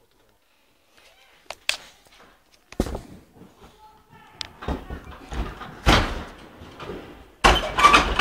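Wooden doors being slammed and rattled: a sharp bang about three seconds in, then a run of knocks and thuds as the doors are pushed and pulled, with another loud bang near the end.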